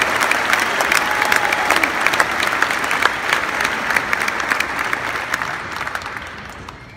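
Audience applauding, with dense clapping that fades out near the end.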